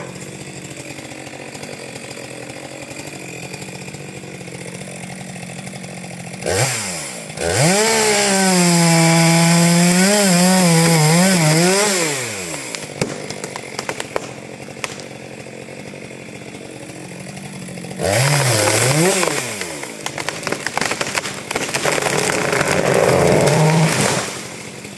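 Two-stroke chainsaw idling, then opened up to full throttle twice for about five seconds each, its engine pitch sagging and recovering as the chain bites into wood. It drops back to idle between the two cuts and again near the end.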